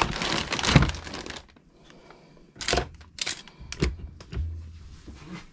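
Hands rummaging for a mislaid bolt. A burst of rustling lasts about a second and a half, then, after a short lull, comes a few sharp knocks and clicks of small hard objects being moved about.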